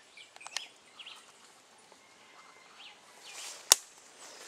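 Footsteps through dry undergrowth: a few small twig cracks and a leafy rustle, then one loud sharp snap a little over three and a half seconds in. Faint bird chirps can be heard.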